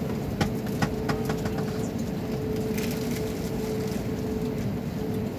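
Steady drone of an Airbus A320-family airliner's jet engines running at low power on the ground, heard inside the cabin, with a constant hum tone over a low rumble. A few light clicks and rattles in the first second.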